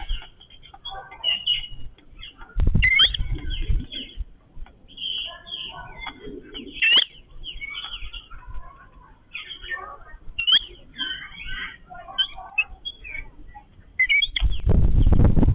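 A group of yellow-billed babblers chattering with many short squeaky chirps and calls. Two loud bursts of low rumbling noise break in, one about three seconds in and one near the end.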